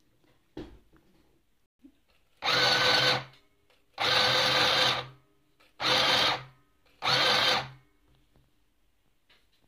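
Small portable mini sewing machine stitching lace, running in four short bursts of about a second each with brief pauses between them. A light knock comes before the first burst.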